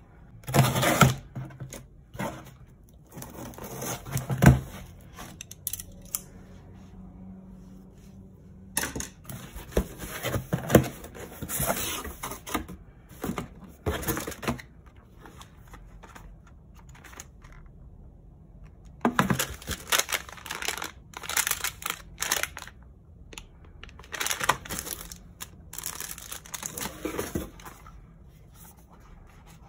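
Cardboard box and packaging being handled while unboxing: irregular bursts of rustling, scraping and tearing with pauses between. Near the start, the parcel's packing tape is cut with scissors and torn open.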